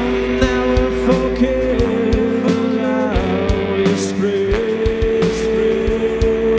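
Live rock band playing: electric guitars holding sustained chords over bass and drums, with a man singing into a microphone.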